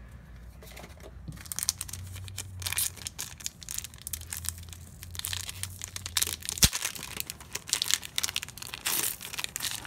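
Trading-card booster pack wrappers crinkling and tearing as packs are opened, in irregular crackly bursts, with one sharp click about six and a half seconds in.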